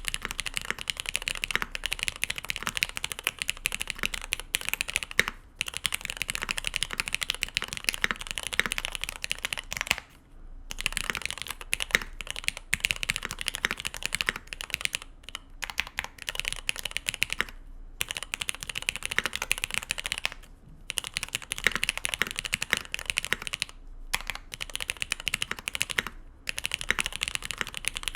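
Fast continuous typing on a Mode Eighty custom mechanical keyboard with GMK keycaps and SP-Star 80g switches lubed with Tribosys 3204: rapid keystroke clicks, with brief pauses every few seconds.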